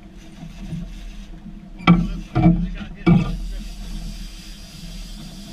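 Three short, loud shouts from a man's voice in quick succession, about two and three seconds in, over the steady hum of the boat's outboard motors and the rush of water and wind.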